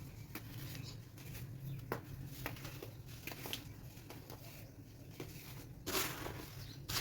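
Chunks of baking soda being crushed and crumbled by hand, giving scattered light crackles and a louder crunch about six seconds in.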